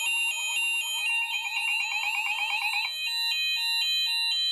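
Fire alarm sounders going off together after a manual call point is activated: a steady high-pitched tone, a two-tone sounder alternating a few times a second, and a fast warbling tone that stops about three seconds in.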